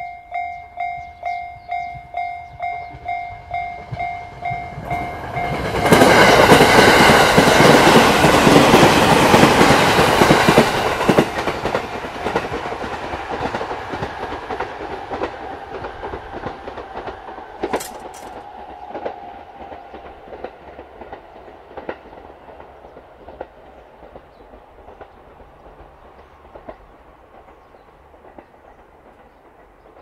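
A Japanese level-crossing warning bell rings in a steady pulse, about two and a half strikes a second. About six seconds in, a train passes close by and drowns it out, loud for about five seconds. The train's rumble and wheel clicks then fade slowly as it draws away.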